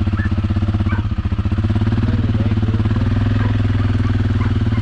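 Four-wheeler (ATV) engine running steadily at low revs, its even rapid firing pulse picking up slightly about three seconds in.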